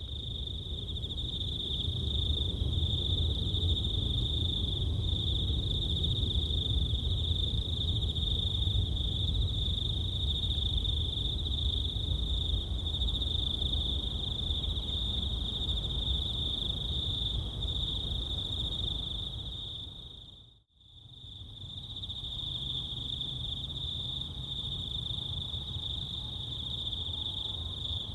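Steady, unbroken high-pitched drone of an insect chorus over a low rumble. Both fade out briefly about twenty seconds in, then return.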